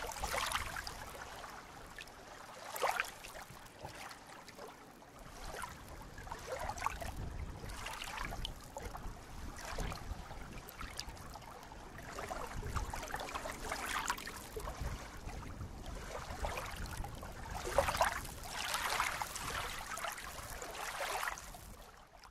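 Small lake waves lapping and splashing in irregular swells every two to four seconds, over a faint low rumble.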